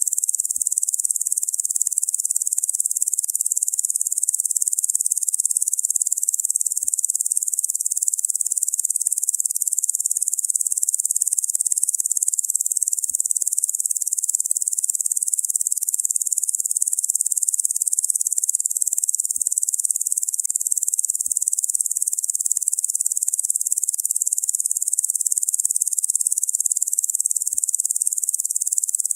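Locusts droning: a steady, high-pitched insect buzz that never pauses or changes.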